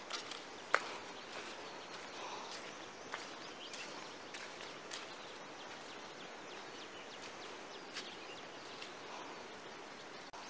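Footsteps of sandals on a sandy, pebbly riverbank, with scattered light clicks and one sharper click under a second in, over a steady rush of river water.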